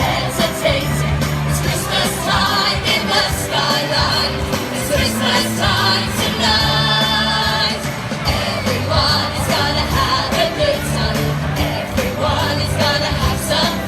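Upbeat pop song with singing over a steady bass line and beat. A long note is held for about a second near the middle.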